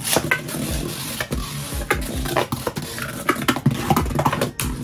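A Beyblade is ripped from its launcher into the stadium right at the start, and then two spinning Beyblade tops, weighted with resin and metal balls, whir around the bowl and clack sharply against each other and the rim many times at irregular intervals.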